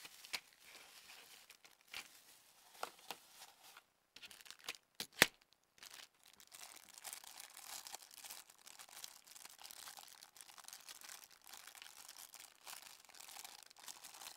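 A few sharp clicks and knocks, the loudest about five seconds in, then a clear plastic bag crinkling steadily as it is handled.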